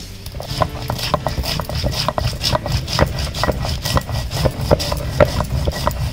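A hand grinding stone (batta) is worked back and forth over a flat stone slab (sil), crushing garlic, onion and chilies into a masala paste. There is a steady low rumble with frequent irregular clicks and knocks of stone on stone.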